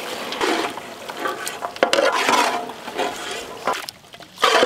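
A long flat spatula stirs and turns chunks of goat meat through hot masala in a large metal cooking pot. The wet scraping and sizzling come in uneven surges, with a few sharp knocks.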